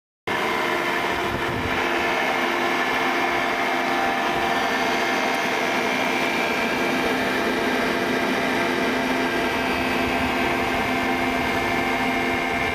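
Electric motor and generator set running at a steady speed, giving an even hum with several steady whining tones over a mechanical whir. It cuts in suddenly just after the start.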